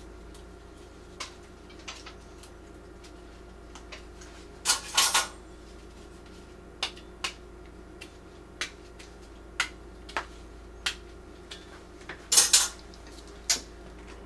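Scattered light clinks and knocks of kitchen utensils and dishes being handled: a dozen or so sharp strikes, with short clusters about five seconds in and near the end, over a steady low hum.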